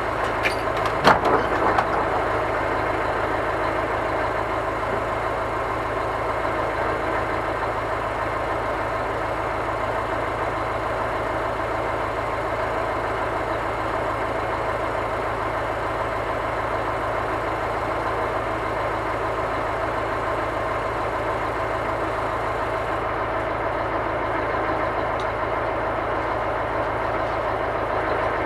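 Scania crane truck's diesel engine running steadily at a constant speed, driving the loader crane's hydraulics, with a few sharp knocks about a second in.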